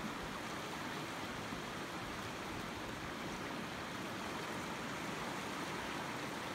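Shallow creek flowing over a rocky bed: a steady, even sound of running water.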